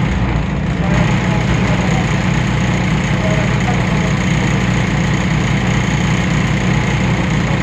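Temsa Avenue LF city bus's DAF PR 228 diesel engine running steadily with a heavy low rumble, its note neither rising nor falling, and a thin high whine held above it.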